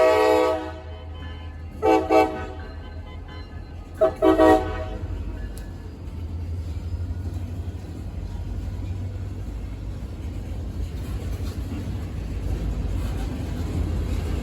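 A train horn ends a long chord-like blast just after the start. About two seconds in come two short horn toots, then three quick toots about four seconds in, a car horn and the train horn answering each other. After that, a steady low rumble of the train that slowly grows louder.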